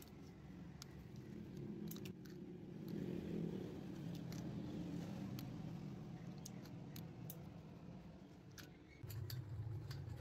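Scattered clicks and light scrapes of hand tools worked on the rubber around a bus tyre's sidewall cut, over a steady low rumble that grows louder about nine seconds in.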